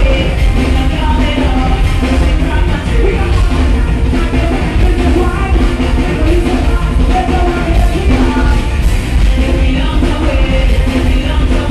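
Live soca music played loud with a strong, steady bass, with a woman singing over the band.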